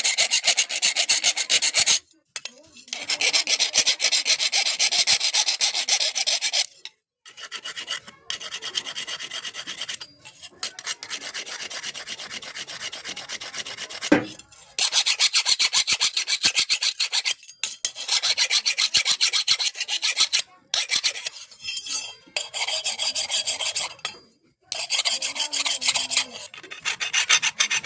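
Hand file rasping over the forged metal spatula in long scraping passes of a few seconds each, with brief pauses between them.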